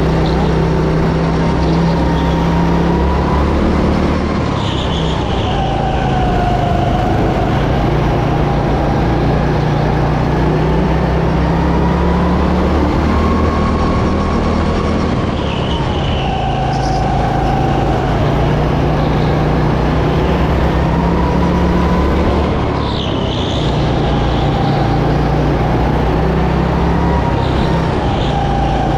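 Go-kart engine heard onboard, running hard around a track. Its revs climb and fall again and again, dipping briefly about four to five seconds in, around fifteen seconds and around twenty-three seconds.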